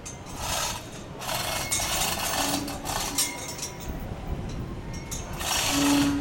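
Metal clinking and scraping in three bursts, about half a second in, from about one to three seconds, and loudest near the end: steel parts being handled during steel-frame erection.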